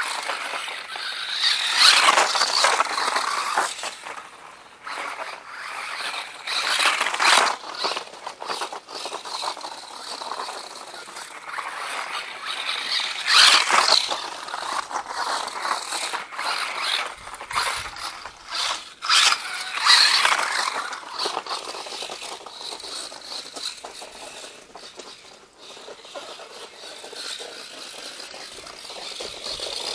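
Four-wheel-drive RC truck driving through snow, its motor whining in repeated bursts of throttle a few seconds apart, with scraping from the tyres and chassis in between.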